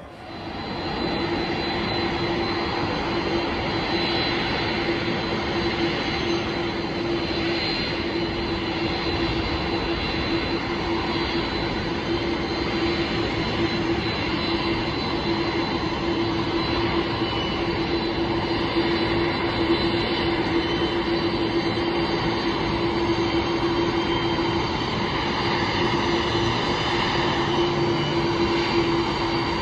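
Boeing 747 freighter's four jet engines running at taxi power: a steady rumble with a constant hum and a thin high whine over it, coming in abruptly about a second in.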